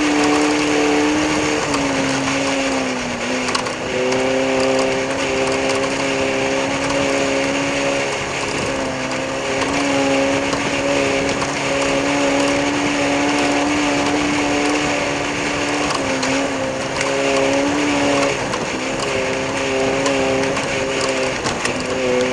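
A motor or engine running with a steady pitched hum that shifts slightly in pitch every few seconds, dipping briefly a few times.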